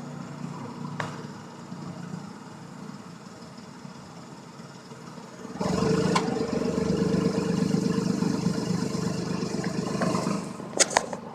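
Nissan Moco kei car's three-cylinder 660 cc engine idling steadily; the sound grows clearly louder about halfway through, and a few sharp clicks come near the end.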